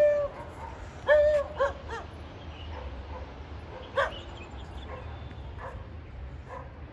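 A dog whimpering and yipping: a few short, high whining calls about a second in, then one sharp yip about four seconds in.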